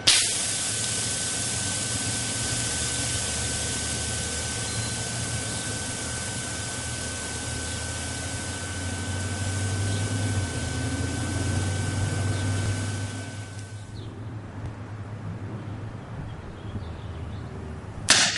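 An electrolytic capacitor bursts open and vents for about fourteen seconds with a loud, steady hiss and a thin whistle as its electrolyte boils off as smoke; the hiss then dies away. Near the end a second, axial electrolytic capacitor explodes with a sharp bang, followed by a smaller crack.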